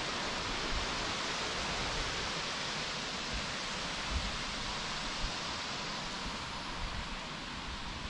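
Steady rush of flowing water, an even hiss that holds unchanged.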